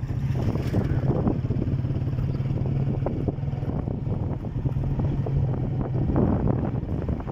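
Motorcycle engine running steadily while riding, heard from the rider's seat, with scattered knocks and rattles over the rough dirt lane.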